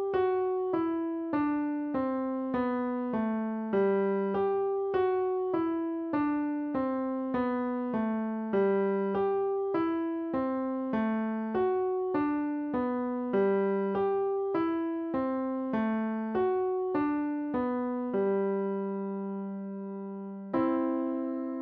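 Piano playing a slow beginner's piece, one note at a time in repeated phrases that fall step by step like a peal of bells. Near the end it holds a long low note, then strikes a new note.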